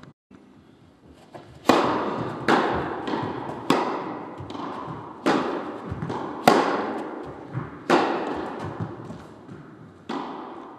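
Tennis balls struck in quick succession: about ten sharp impacts beginning under two seconds in, each ringing on and fading in a reverberant indoor hall.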